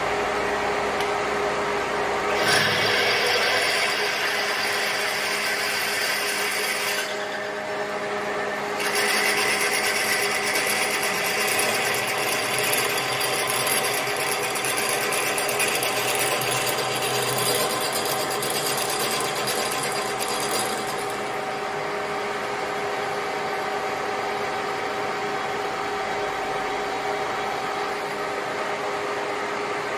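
Handheld electric power tool motor running continuously with a steady whine. Its sound brightens about two seconds in, drops briefly around a quarter of the way through, and settles lower and steadier past the two-thirds mark as the load changes.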